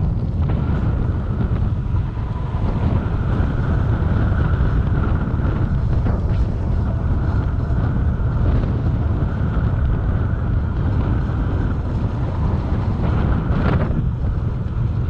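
Steady wind buffeting the microphone of a moving motorbike, with the bike's engine running underneath.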